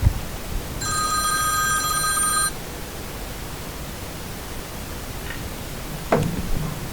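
An electronic alert tone: a chord of steady high tones sounds for just under two seconds, starting about a second in, over a steady hiss.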